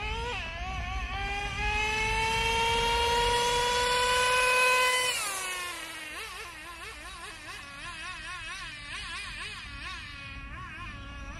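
Traxxas Revo 3.3 nitro RC truck's small two-stroke nitro engine accelerating, its high whine climbing steadily in pitch for about five seconds. About five seconds in, the pitch drops sharply, and the engine then runs quieter, its pitch wavering up and down.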